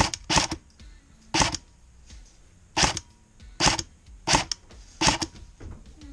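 Airsoft rifle firing single shots from a wooden blind: about seven sharp snaps at an uneven pace, roughly one every second.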